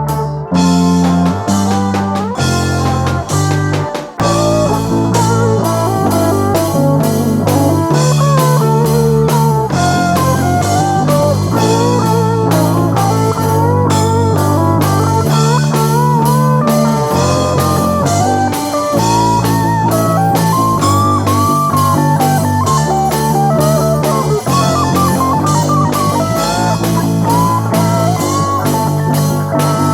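Rock song's guitar solo: a lead guitar line with bent, sliding notes over bass guitar and a drum kit, with no singing.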